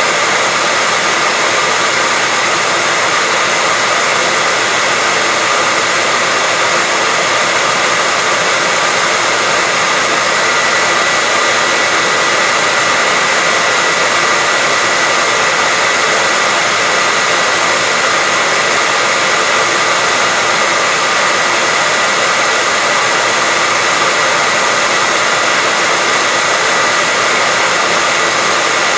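Hair dryer running steadily: a constant rush of blown air with a thin, steady whine on top, unchanging throughout.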